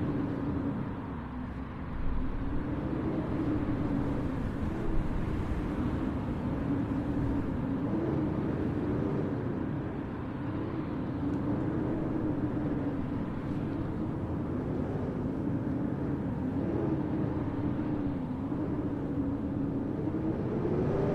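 Steady city ambience in a snowstorm: a low rumble with a hum that wavers slightly up and down in pitch.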